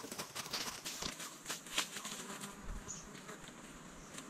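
A quick, irregular run of small clicks and crackles that thins out about halfway, with a brief high-pitched chirp near three seconds in.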